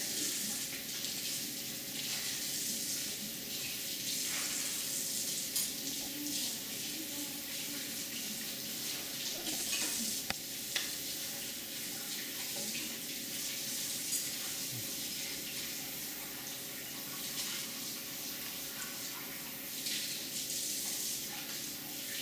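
Steady hiss of running water, swelling slightly now and then, with a few faint clicks.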